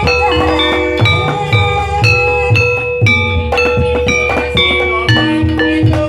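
Traditional Javanese ebeg dance music: struck tuned percussion notes ringing out at a steady beat over low drum thuds.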